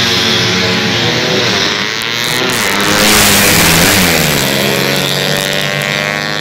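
Two four-stroke 130cc underbone drag-racing motorcycles at full throttle pass close by. Their engine note grows loudest about three to four seconds in, then drops in pitch as they go by.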